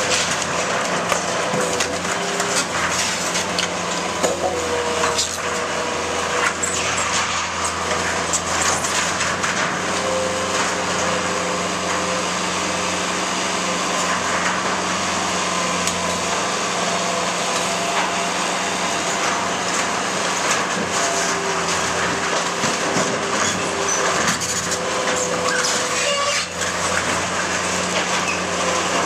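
Bobcat 753 skid-steer loader's diesel engine running steadily under load as it tears into a wooden shed, with scattered cracks and knocks of splintering wood and corrugated sheet metal being pushed about.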